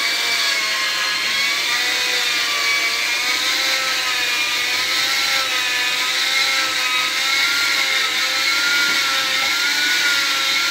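Hand-held electric drill running steadily, spinning a polishing tool inside a scooter engine's cylinder bore. Its motor whine wavers slightly in pitch as the tool is worked up and down.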